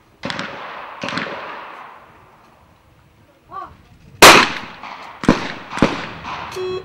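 Over-and-under trap shotguns firing: two shots about a second apart, a short shouted call, then a very loud close shot followed by two more. A short beep sounds near the end.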